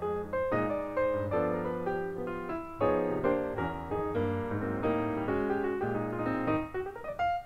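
Background music: a piano-style keyboard tune, a steady run of notes.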